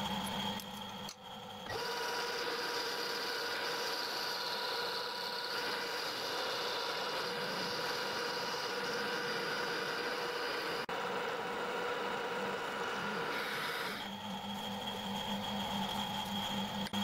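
Metal-turning lathe running with a steady hum while the steel spindle blank turns in its chuck. From about two seconds in until about fourteen seconds a steady rasping scrape is added as a hand-held strip is pressed against the spinning steel bar.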